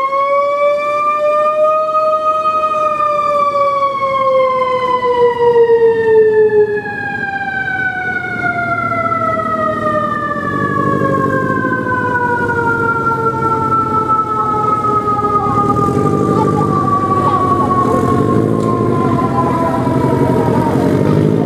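Fire engine's siren winding up to its peak and then slowly falling in pitch as it winds down.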